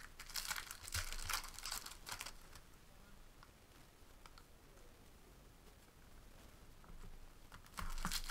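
Wrappers of 2018 Topps Update baseball card packs crinkling and tearing as they are ripped open by hand, in two bursts: one just after the start and one near the end, with a quieter stretch of faint ticks between.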